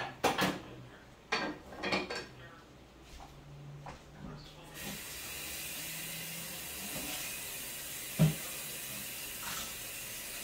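A few clatters of a pot and utensils, then a kitchen tap turned on about five seconds in, running steadily into the sink. One loud knock, likely a dish or pot against the sink, comes a few seconds later.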